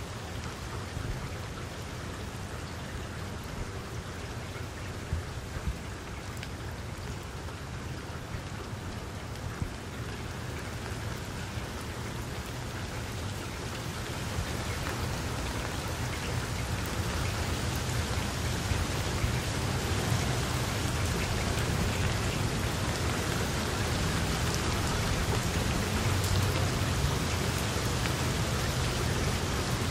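Steady rain falling on water, with a few single drops standing out. It grows gradually louder from about halfway through.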